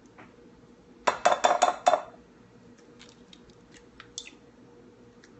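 A brown egg cracked against the rim of a glass bowl: a quick run of about six sharp glassy clinks a little after a second in, then faint clicks of eggshell as the shell is pulled apart over the bowl.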